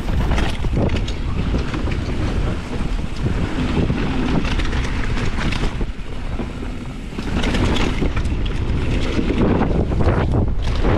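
Wind buffeting an action-camera microphone as a downhill mountain bike runs fast down a dirt trail, with knobby tyres rumbling over the ground and the bike rattling and knocking over bumps. It gets louder and busier from about seven seconds in.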